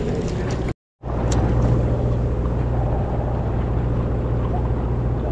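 Steady low drone of the fishing boat's engine running, broken by a moment of dead silence about a second in.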